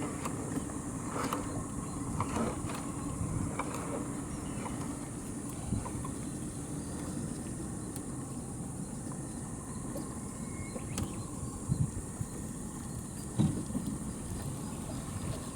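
Steady low running of a fishing boat's motor, with a few scattered knocks and clicks over it.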